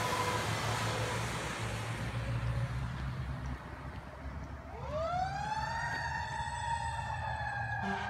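A fire truck's siren starts about halfway through, rising in pitch over about a second to a high held wail, over the running of the truck's engine and road noise.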